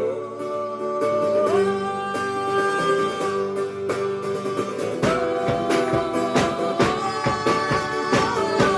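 Acoustic guitars strumming a wordless instrumental passage of a live song, with long held notes above the chords. About five seconds in, the strumming turns heavier and fuller.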